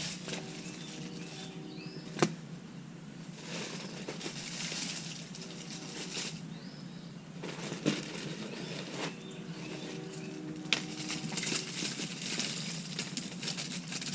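Wood mulch being tipped out and spread by hand: several bursts of rustling and scraping, with three sharp knocks along the way.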